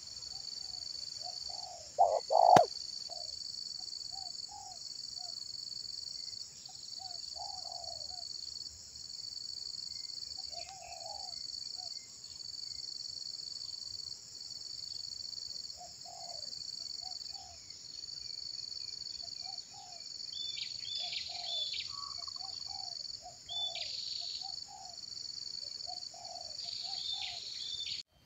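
Spotted dove cooing, with one loud call about two seconds in and soft low coos scattered through. Behind them a steady high insect drone pulses about once a second, and small birds chirp in the last third.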